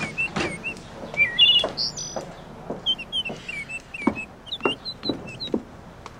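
Small songbirds chirping repeatedly in short high calls, with a person's footsteps knocking on the porch and its steps, about two steps a second in the second half.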